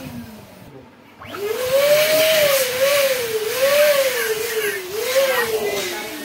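Electric balloon pump switching on about a second in and running with a rush of air as a balloon inflates on its nozzle; its hum wavers up and down and sinks in pitch near the end.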